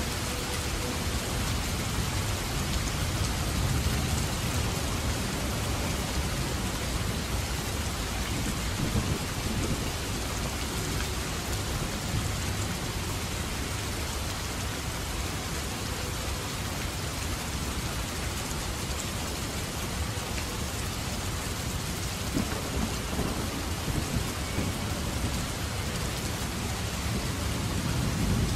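Heavy downpour of rain falling steadily, with thunder rumbling low beneath it. The rumble is strongest in the first few seconds to about a third of the way in, and swells again near the end.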